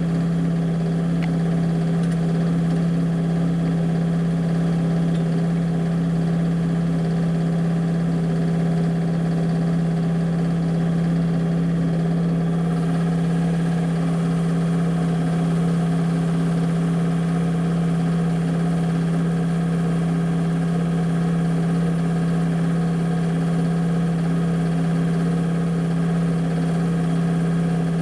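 An engine idling steadily, a droning hum that holds one unchanging pitch.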